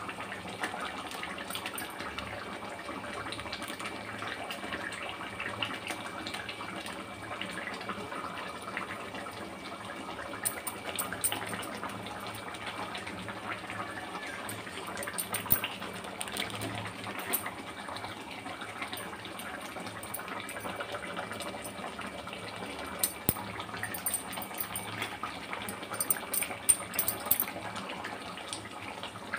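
Thick potato curry (dum aloo) simmering in a kadai: a steady bubbling hiss with scattered sharp pops, which come more often in the second half.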